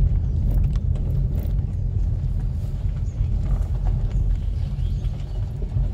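Steady low rumble of the moving vehicle carrying the camera, with faint scattered clicks and rattles.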